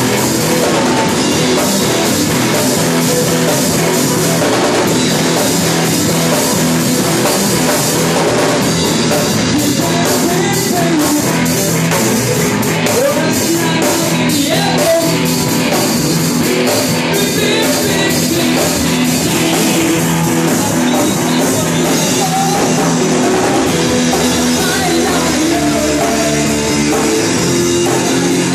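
A rock band playing loud, with a drum kit and electric guitar.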